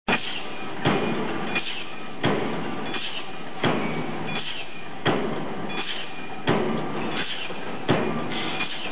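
Punch press on a can-lid (ring cap) production line stamping metal sheet: six sharp metallic press strokes, evenly about every 1.4 seconds. A lighter clank falls roughly midway between strokes, over a steady machine running noise.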